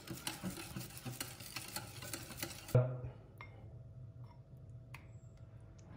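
Wire whisk beating thick yogurt against the sides of a ceramic bowl: rapid, dense clicking and scraping strokes. It stops abruptly with a knock about three seconds in, leaving only a few faint clicks.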